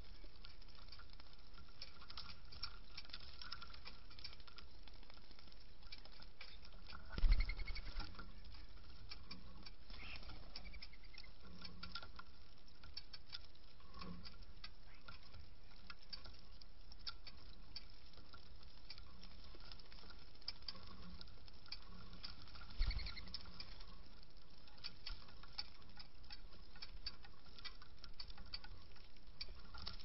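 Mourning doves pecking hulled sunflower seeds on a wooden platform feeder: a steady patter of small clicks. Two dull thumps break in, one about a quarter of the way through and one about three quarters of the way through.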